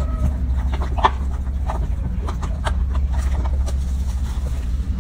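Hands scrubbing a baby monkey's soapy, wet fur, heard as scattered short rubbing sounds over a steady low hum.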